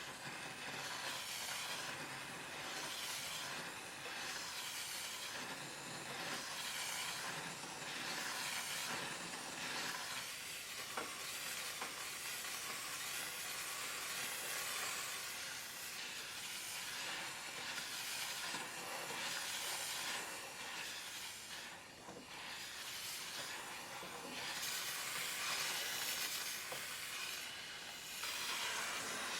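Steam cleaner jetting hot steam, a continuous hiss that dips briefly a few times as the jet eases and comes back.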